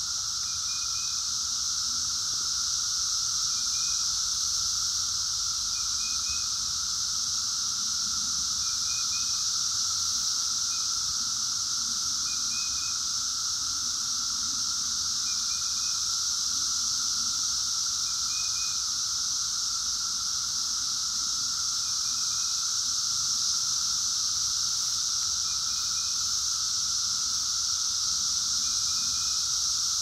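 Chorus of Brood X 17-year periodical cicadas (Magicicada): a steady, loud, high buzzing drone over a lower steady hum. Faint short chirps recur about every two seconds.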